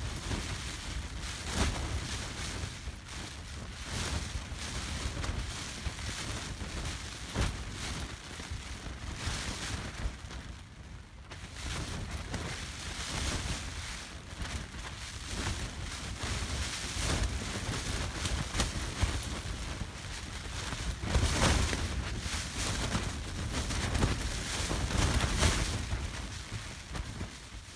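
Storm-force wind, gusting at around 50 mph, buffets a Hyperlite Mountain Gear Ultamid 2 Dyneema pyramid shelter, heard from inside. Repeated gusts shake the fabric over a low, rumbling wind noise on the microphone, and the strongest gusts come near the end.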